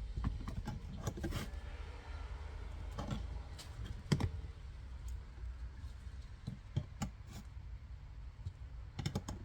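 Flathead screwdriver prying at the retaining ring on a clutch slave cylinder: irregular small metal clicks and short scrapes as the tip catches and slips. A steady low hum lies under it.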